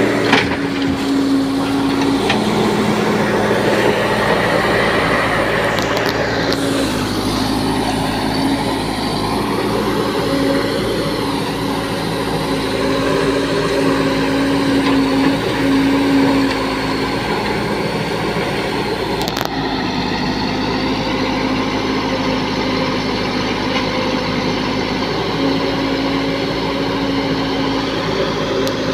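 Diesel engine of a Case 770 backhoe loader running under load as it digs and loads earth, with a Sonalika tractor's engine idling alongside. The engine note holds steady and steps up and down in pitch now and then.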